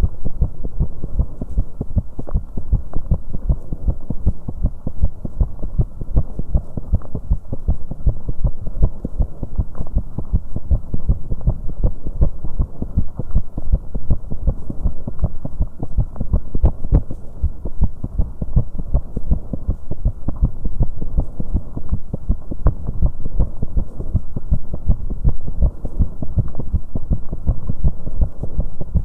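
Human heartbeat pounding fast after exercise on an exercise bike: a quick, unbroken run of deep thumps.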